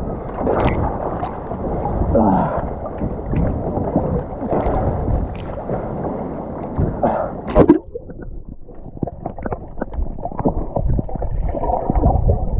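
Sea water slapping and gurgling against a camera held at the surface while people swim, with scattered splashes. About eight seconds in, a loud splash as the camera goes under, and the sound turns muffled: underwater bubbling and clicks.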